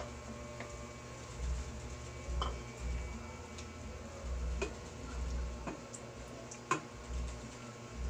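Cooking utensil clicking and knocking now and then against a metal pot while a stew of pork and cheese is stirred, a few sharp taps a couple of seconds apart over a low uneven rumble.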